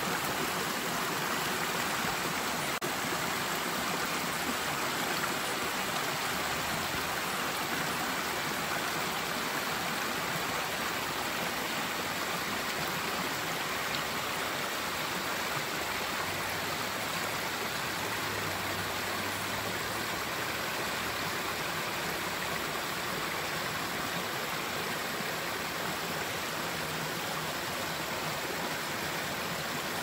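Small rocky brook running over stones and low cascades: a steady rush and splash of water.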